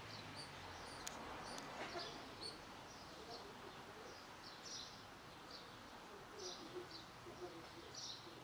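Small birds chirping in short, repeated calls, faint over a low steady outdoor background, with two small clicks a little after a second in.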